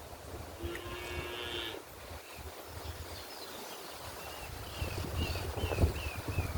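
A cow moos once, a steady call just over a second long, about a second in. In the second half a bird gives a quick series of short falling chirps, over low wind rumble on the microphone that gusts up near the end.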